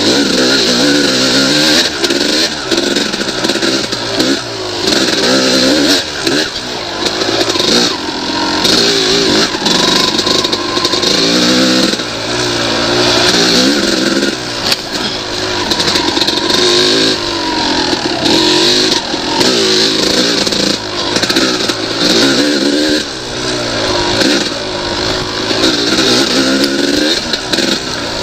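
1998 Yamaha YZ250 two-stroke dirt bike engine ridden hard on a rough trail, revving up and dropping back again and again as the throttle is worked.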